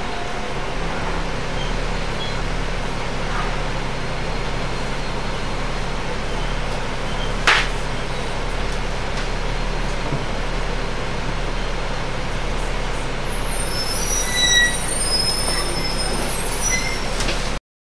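Double-decker bus heard from inside the passenger cabin: the engine runs steadily over road and cabin rattle noise, with a single sharp knock about halfway through. Near the end come several brief high-pitched brake squeals as the bus slows, and the sound then cuts off suddenly.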